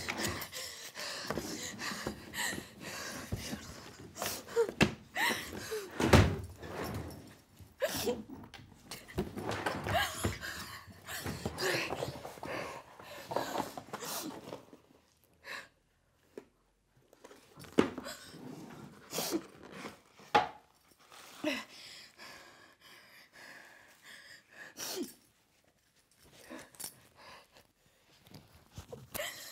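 Rummaging through a drawer: objects being picked up, shifted and knocked against each other, with rustling and thunks. It is busiest in the first half, with the loudest knock about six seconds in, then a few scattered knocks.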